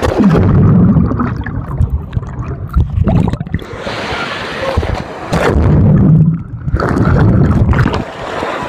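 Wave-pool water sloshing and gurgling right against a phone's microphone held at the surface, in loud rumbling surges that come and go several times.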